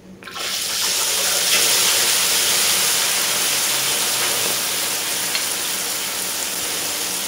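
Egg batter, thinned with water and mixed with chopped greens, hitting a wok of hot deep oil: loud sizzling of frying starts suddenly about a third of a second in and holds steady, easing slightly toward the end. The water in the batter is what makes it sizzle so hard.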